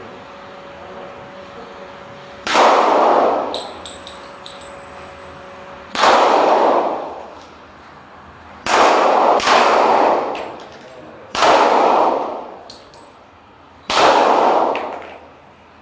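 Six handgun shots fired slowly at a shooting range, two of them in quick succession near the middle. Each crack rings on with a long echo under the range's roof.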